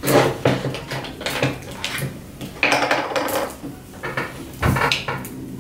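Wheat crackers snapped by hand, the pieces dropping into a plastic mixing bowl, while a sugar-sprinkle shaker rattles over it: a run of irregular sharp snaps and clatters.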